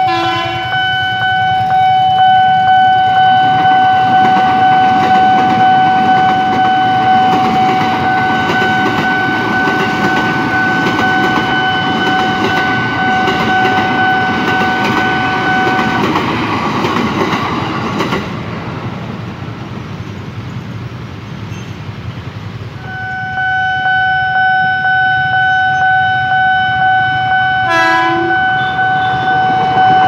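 Level-crossing warning alarm sounding a steady pulsing tone over the rumble of an electric commuter train passing on the tracks. The alarm drops out for several seconds while the train's noise carries on, then resumes. A brief horn blast comes near the end.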